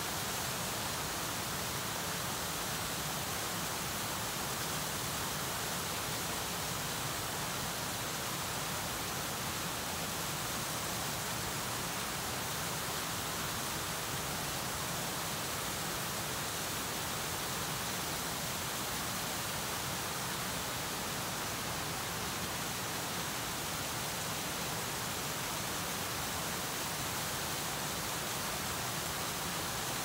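Gentle waterfall on a stream: a steady, even rush of falling water.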